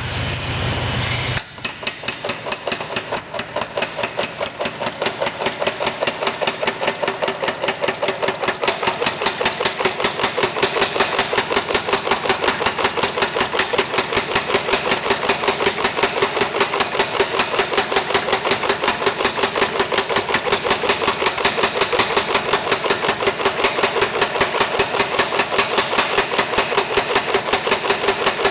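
25 lb Little Giant mechanical power hammer pounding round bar stock in a fast, even rhythm of about five blows a second, drawing out the bar. The blows start about a second in, after a moment of steady machine running.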